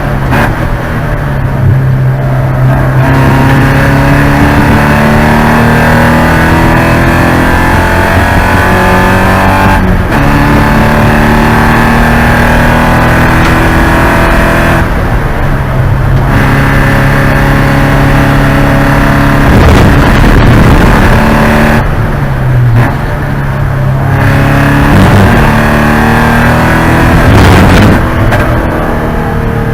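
Porsche 944 race car's four-cylinder engine running hard, its pitch climbing with the revs and stepping down at each gear change, several times over.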